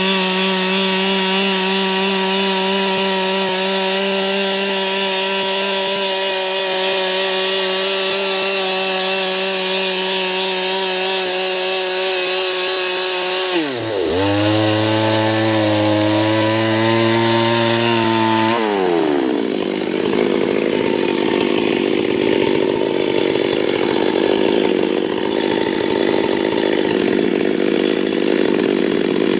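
Chainsaw engine running steadily at high speed, then dropping sharply to a lower speed about halfway through. About five seconds later it revs back up and runs on with a wavering pitch.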